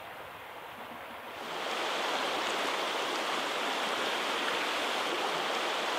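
Creek water running, a steady rushing hiss that grows louder about a second and a half in.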